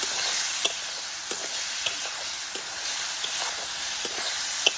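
Potatoes and ground spice paste sizzling in a kadai while a steel spatula stirs them, its edge clicking and scraping against the pan every half second or so.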